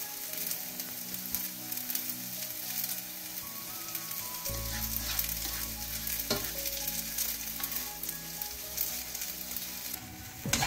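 Tiny dried rice anchovies sizzling in a little hot oil in a nonstick wok. Through the steady sizzle, a slotted spatula repeatedly scrapes and tosses them.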